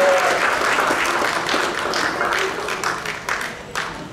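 Audience applauding, the clapping dying away and thinning to scattered claps near the end.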